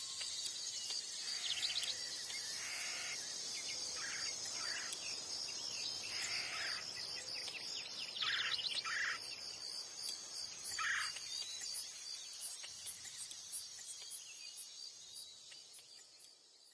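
Night-time nature ambience: a steady, high chorus of crickets with scattered short chirping calls, fading out near the end.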